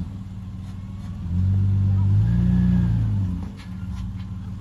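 Off-road SUV engine pulling under load as the vehicle crawls up a steep rock ledge. The throttle comes on about a second in and eases off again near three and a half seconds.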